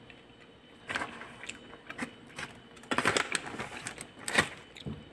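Paper wrapper and plastic bag rustling and crinkling as they are pulled open by hand, in short irregular bursts that are loudest about three to four and a half seconds in.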